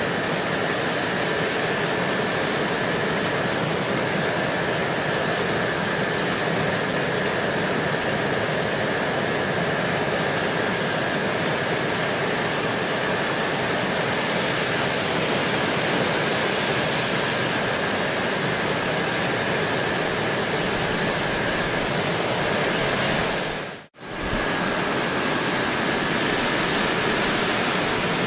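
Steady rainfall, an even dense hiss, with a faint steady high tone underneath. About three-quarters of the way through, the sound drops out for an instant and comes straight back.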